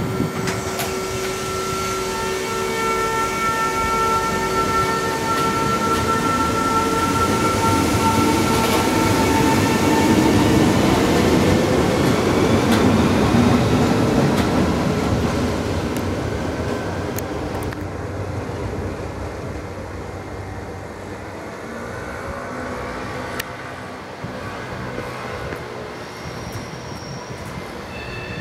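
Two coupled NS SGMm Sprinter electric multiple units pulling out and gathering speed. A steady high electric whine dies away after about ten seconds, while the rumble of wheels on rail grows loudest about halfway and then fades as the train draws off.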